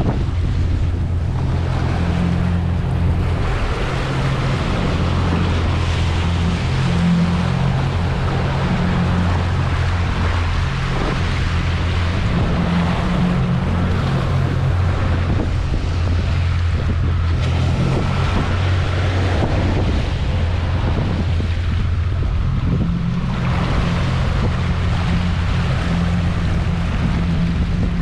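Strong gale wind buffeting the microphone: a loud, steady low rumble over a wash of wind and choppy water.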